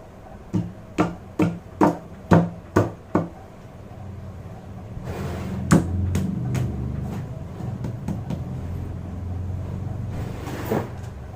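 Seven sharp knocks, about two a second, as the clutch cover of a Royal Enfield Himalayan engine is tapped into place over its new gasket. Then a low rumbling noise with a couple of clicks as the parts are handled.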